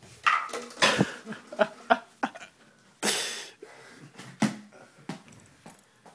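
A run of short knocks and thuds at irregular intervals from balls thrown at a seated player, with a breathy, cough-like exhale about three seconds in.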